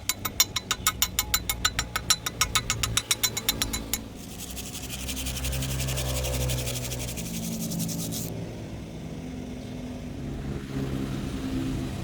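Arc welding: a rapid, even ticking of about nine clicks a second, giving way about four seconds in to the arc's steady crackling hiss, which stops about eight seconds in. A low engine-like drone runs underneath.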